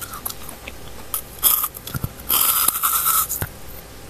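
Close-up chewing and crunching of a chocolate-coated ice cream bar, in a few short noisy bursts with small mouth clicks between them.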